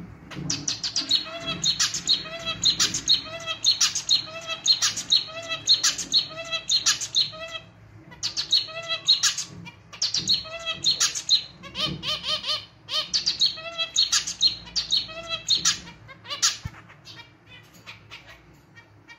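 Male zebra finch singing, a rhythmic clarinet-like song a little out of tune, its notes repeating about twice a second. It sings in two long runs with a short break about eight seconds in, then tapers off near the end.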